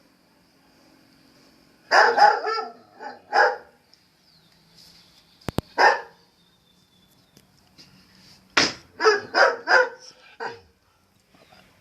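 A dog barking in short bouts: a few barks about two seconds in, single barks near three and a half and six seconds, and a quick run of barks from about eight and a half seconds. A sharp click sounds just before the six-second bark.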